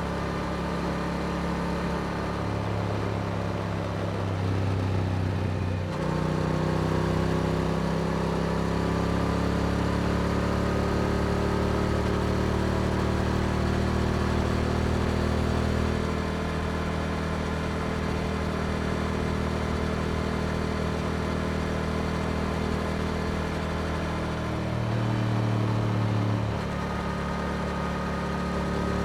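Yamaha R7's parallel-twin engine running through an Akrapovic exhaust while riding on the road. There is a short break in the engine note about six seconds in, after which the pitch climbs slowly for several seconds and then holds steady, with another brief change in pitch near the end.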